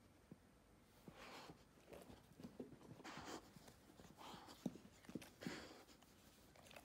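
Near silence: a few faint breathy rustles about half a second each and a handful of small soft taps.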